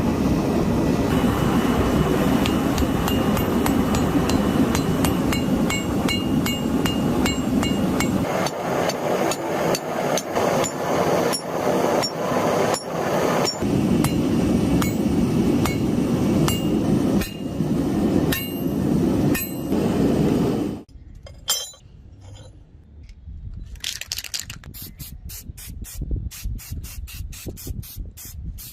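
Hammer blows on steel, each strike ringing metallically, over a steady rushing noise that stops about two-thirds of the way through. Near the end the blows come quickly, about four a second.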